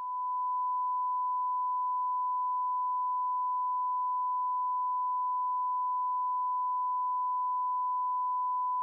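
A single steady electronic beep tone: one pure, unchanging pitch, held without a break.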